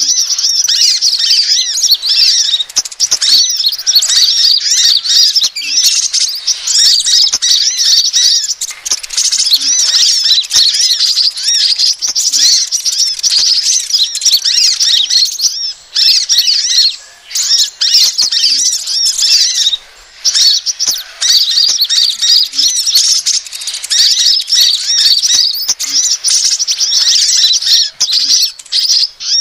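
Bird-lure recording of sunbird calls, kolibri ninja and crimson sunbird (sepah raja): dense, rapid, high-pitched chirping and twittering, with a couple of brief pauses about two-thirds of the way through.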